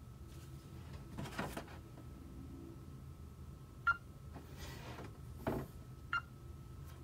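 TCL A1 smartphone giving short touch beeps from its speaker as its screen is tapped, once about four seconds in and again about six seconds in. Two soft rustles of the phone being handled come in between.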